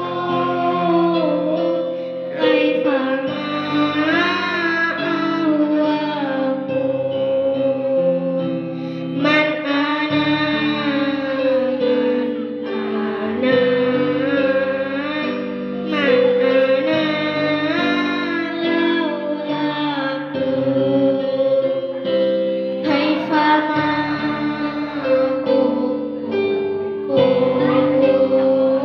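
A girl singing a song in phrases into a handheld microphone, over instrumental backing music.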